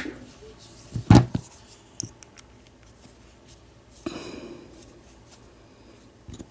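Hands handling a padlock and small metal lockpicking tools on a bench: light clicks, one sharp knock about a second in, and a brief scraping rustle about four seconds in.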